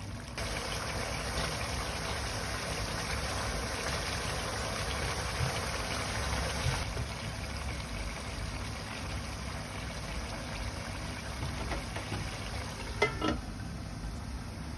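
Pork adobo simmering in an open pan on a gas stove: steady bubbling over a low rumble. A single clink about thirteen seconds in as the glass-and-metal lid goes back on.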